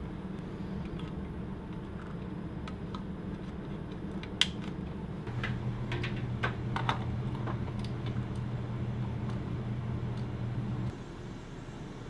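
Scattered light clicks and clatter of tools and parts being handled, the sharpest click about four and a half seconds in and a cluster a little later, over a steady low hum that gains a deeper hum from about five seconds in until near the end.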